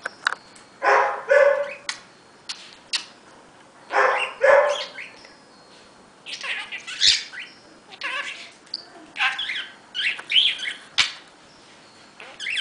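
Male budgerigar chattering: short bursts of scratchy, talk-like warbling mixed with chirps, in quick runs with brief pauses between them.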